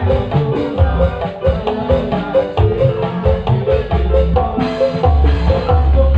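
Loud percussive music: a repeated pitched mallet-like melody over heavy, pulsing bass drum beats.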